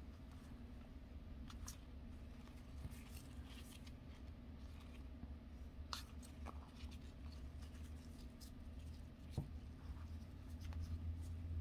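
Faint clicks and soft sliding of a stack of football trading cards being leafed through by gloved hands, over a low steady hum that grows louder near the end.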